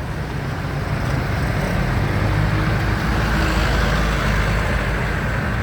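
Toyota Avanza engine running steadily at idle, a constant low rumble.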